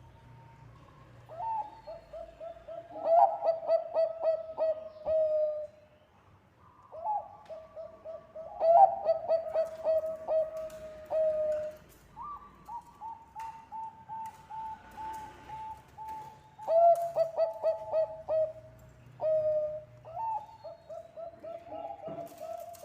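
Zebra dove (Thai-bred perkutut bangkok) cooing in its song: each phrase is a quick run of stuttering notes that ends in a long held coo. About five phrases follow one another with short gaps.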